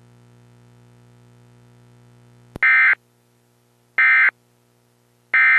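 Emergency Alert System SAME end-of-message data: three short, loud, buzzy digital tone bursts about a second and a half apart, the signal that the alert broadcast is over. Before them a steady low hum runs for a couple of seconds and ends in a click.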